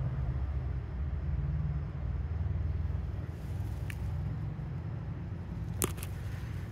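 A steady low hum of running machinery, with a faint click about four seconds in and a sharper click near the end.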